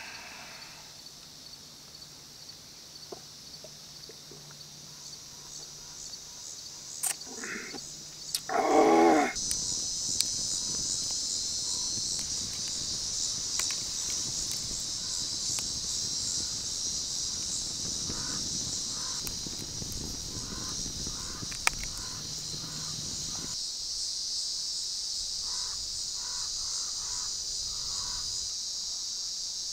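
Insects buzzing steadily in a high pitch, growing louder about nine seconds in. Two bird calls come about seven and nine seconds in, the second the loudest sound, and short chirps are scattered through the second half.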